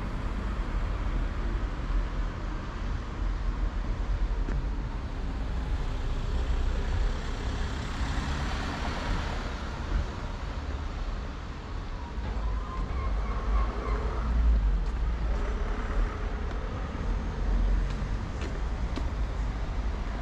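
Road traffic going by, with one vehicle passing louder about eight to ten seconds in, over a steady low rumble.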